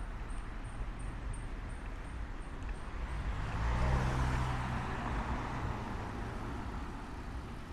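A motor vehicle passing along a city street: its low engine rumble and tyre noise swell about four seconds in, then fade, over a steady street background.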